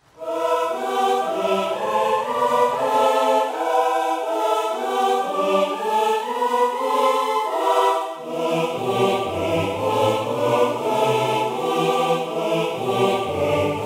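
Music: sustained chords changing in steps, with a deeper bass part coming in about eight seconds in.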